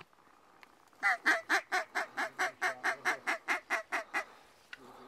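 Mallard quacks in a rapid run of about fifteen, roughly five a second, loudest at first and getting softer toward the end: the descending pattern of a mallard greeting call.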